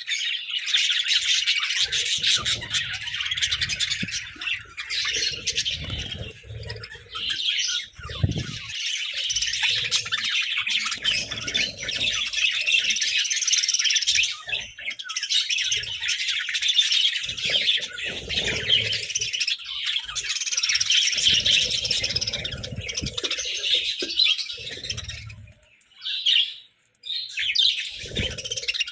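A flock of budgerigars chattering and chirping nonstop in dense overlapping calls, with scattered low knocks and rumbles underneath. The chatter briefly dies down near the end.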